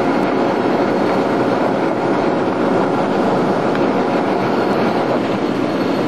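Steady rumble and hiss of a car driving slowly, heard from inside the cabin.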